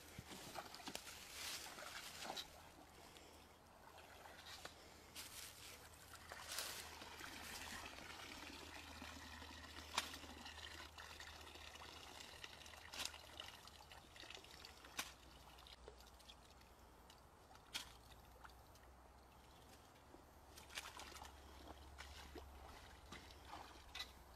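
Faint trickling and dripping of water draining from a dip net full of wet leaf litter in a shallow pond, with scattered sharp clicks and small splashes.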